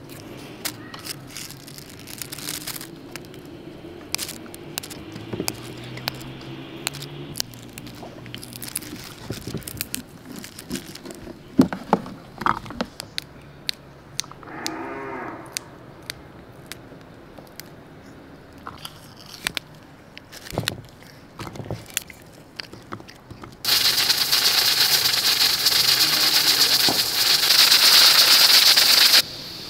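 Fresh green beans being snapped and trimmed by hand: many sharp crisp clicks, with a short low call midway. About three quarters of the way through, a loud steady hiss of steam venting from an aluminium pressure cooker's weight valve takes over. It cuts off suddenly just before the end.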